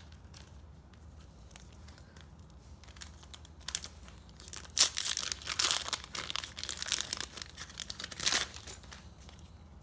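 Foil Match Attax trading-card packet being torn open and crinkled by hand. Faint handling ticks come first; the crackling rustle starts about halfway in, lasts about four seconds and is loudest at its start and end.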